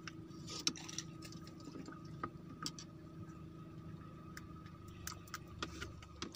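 A steady low engine hum with a faint high whine over it, and scattered small clicks and taps.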